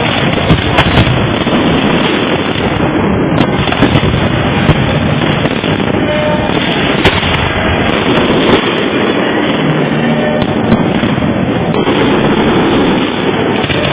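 Fireworks display: a dense, continuous rumble of shells bursting, with sharp loud bangs standing out at irregular moments.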